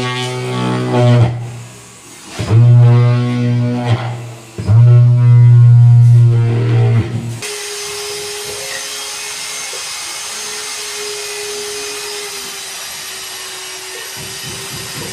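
Background music with guitar and bass for the first half, cut off abruptly, then a small electric tool's motor running steadily with a thin, even hum.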